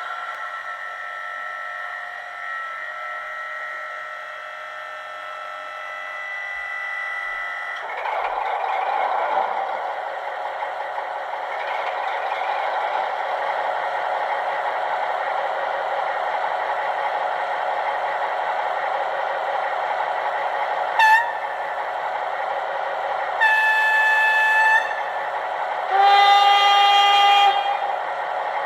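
Digital sound decoder in an H0 model of a V200 diesel-hydraulic locomotive playing its engine sound: a steady running note that builds up about eight seconds in and then runs on evenly. Near the end the locomotive horn sounds three times, a short toot followed by two longer blasts.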